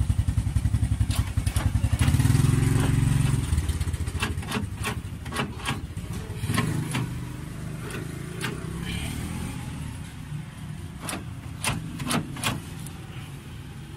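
A motor vehicle engine runs throughout with a low pulsing rumble, loudest over the first few seconds and then steadier and lower. Over it come a series of sharp clacks, several in the middle and quick pairs near the end, from a newly fitted central-locking door actuator driving its rod to the door latch.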